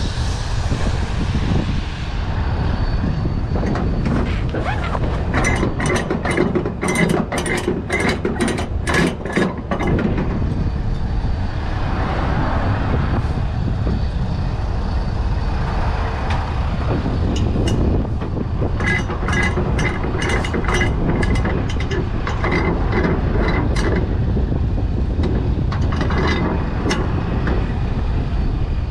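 Flatbed trailer strap winches being ratcheted tight, the pawls clicking rapidly in two spells, one about five seconds in and a longer one in the second half, as the slack is taken up in the cargo straps. A steady low rumble runs underneath.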